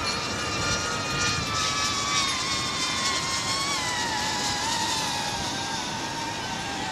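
HGLRC Veyron cinewhoop's ducted propellers and motors whining, the pitch slowly falling as the throttle comes down to land. Wind noise runs under it.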